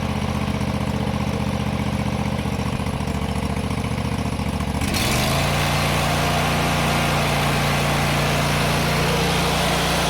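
Kawasaki FH601V V-twin engine of a John Deere GT245 lawn tractor running evenly at a low speed. About halfway through it picks up speed and grows louder, then holds steady at the higher speed. It is running smoothly on a fresh air filter, with the rich running and misfire caused by a plugged filter cured.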